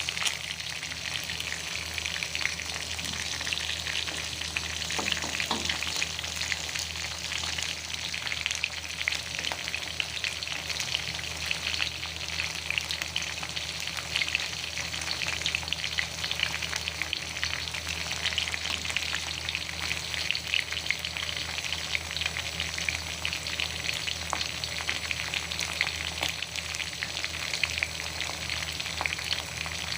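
Food sizzling and crackling in hot oil in a pan, steady throughout with a constant patter of small pops.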